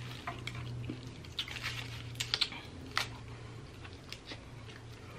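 Eating sounds: a foil-wrapped burrito is handled and bitten into, with scattered small clicks and crinkles of foil and mouth, several close together in the middle. A low steady hum runs underneath.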